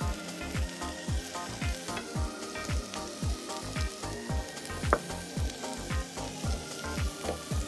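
Meat skewers and raw prawns sizzling on the hot oiled plate of an OFYR Tablo tabletop grill, under background music with a steady beat about twice a second. One sharp click about five seconds in.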